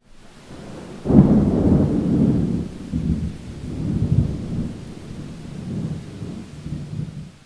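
Rain falling, with a long roll of thunder that breaks in about a second in and rumbles on in several swells before dying away near the end.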